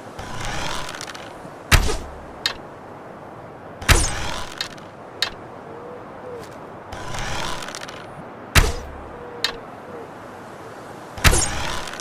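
Wooden bow and arrow shot repeatedly: four sharp snaps, with rustling swells before two of them and lighter clicks in between.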